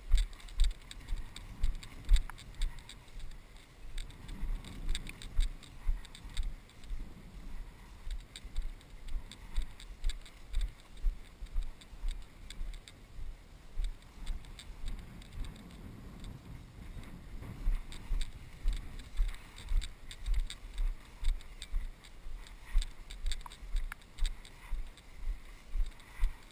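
A person walking steadily through tall grass, about two footsteps a second. Each step lands as a dull thump jolting a body-worn action camera, with light clicks on top.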